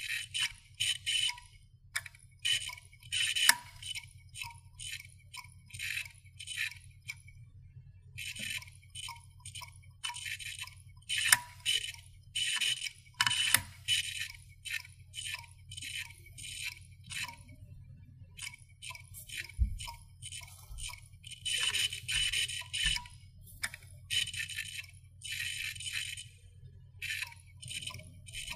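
Rapid, dry clicking and scratching ('karikari kachikachi') of small hard objects, in irregular bursts of quick high-pitched clicks, each burst lasting up to about a second with short pauses between.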